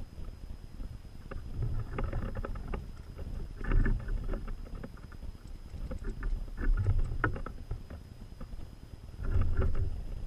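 Wind rumbling on the microphone in gusts, with scattered clicks and knocks from European goldfinches landing on and pecking at a hanging tube seed feeder. The loudest gusts come about 4, 7 and 9 seconds in.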